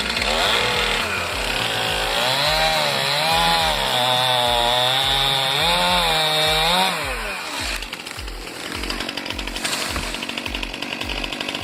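Chainsaw running and cutting, its engine pitch wavering up and down as the load changes, then dropping away about seven seconds in.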